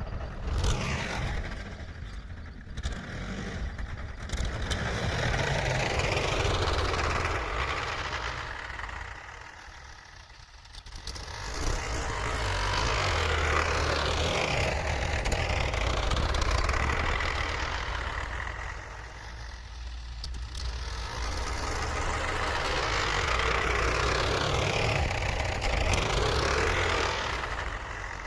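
Tractor engine running continuously, its sound swelling and easing in long surges about every ten seconds.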